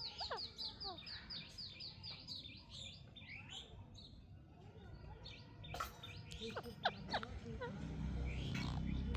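Pet parrot chirping: a fast run of short, high chirps, about four or five a second, then varied whistles, sharp squeaks and short calls. A low rumble comes in near the end.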